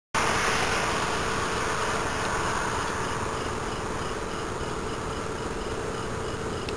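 Insects chirping in a regular pulse, about three chirps a second, over a steady outdoor hiss with a faint steady hum.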